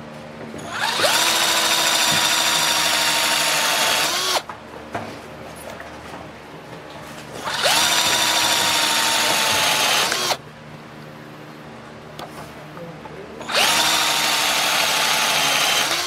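Electric drill boring holes through a wooden board, in three separate runs of about three seconds each. Each run has a steady motor whine that spins up at the start and winds down at the end.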